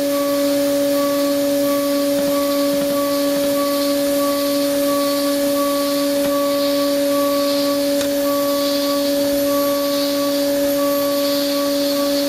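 CNC milling spindle turning at 17,000 rpm, driving a 4 mm ISCAR Chatter Free end mill through C45 steel at 9.8 mm depth of cut. It makes a steady whine, with a higher tone that keeps coming and going, over a steady hiss.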